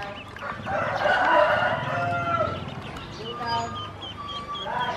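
Ducklings peeping in short, high, repeated chirps. About a second in, a louder call from a larger fowl lasts roughly a second and a half.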